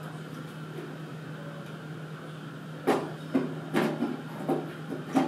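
Acrylic cover of an LCD resin 3D printer knocking and clacking as it is lowered and seated onto the printer's metal base: about five light knocks, starting about three seconds in.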